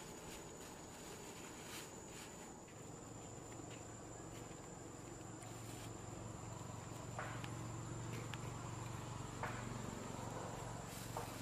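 Faint ambience with a steady high-pitched insect drone, and a few soft clicks in the second half.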